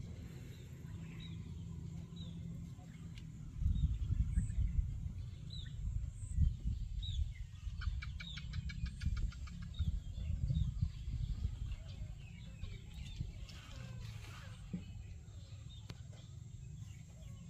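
Outdoor ambience: a low rumble that rises and falls, with small birds giving short chirps again and again. About eight seconds in there is a quick rattling trill lasting a second or so.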